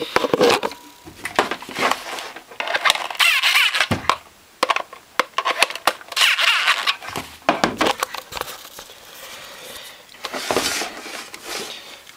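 Hand screwdriver turning screws into a Sunbeam hand mixer's plastic casing: short rasping bursts with scattered clicks and knocks as the casing is handled.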